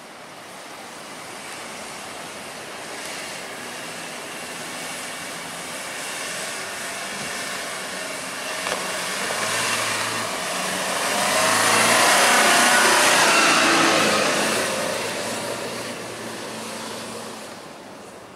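Ute engine working hard in soft sand as it drives off recovery boards, its tyres spinning and flinging sand with a rushing hiss. The engine note rises and swells to its loudest about two-thirds of the way through as the vehicle passes close, then fades away.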